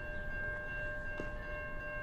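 Railway level-crossing warning bell ringing steadily with a bell-like clang, over a low background rumble.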